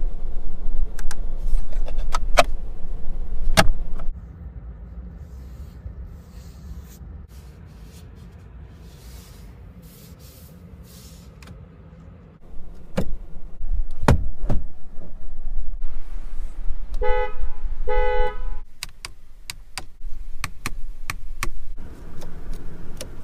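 Car horn of a Hongqi H6 giving two short toots about a second apart. Sharp clicks of dashboard switches and the column stalk come before and after.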